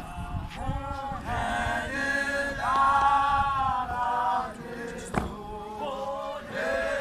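Group of young men singing an isiZulu hymn together, holding long notes that glide between pitches. There is one sharp knock about five seconds in.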